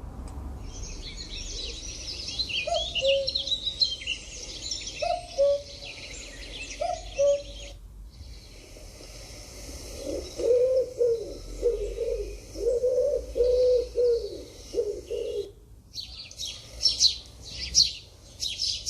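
Three bird recordings one after another: a cuckoo giving its two-note cu-coo call three times with small birds twittering behind it, then a pigeon cooing in a run of low calls, then house sparrows chirping rapidly near the end.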